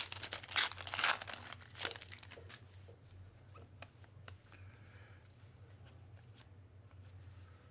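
Plastic-foil trading card pack wrapper being torn open and crinkled for about two seconds, then a few faint ticks.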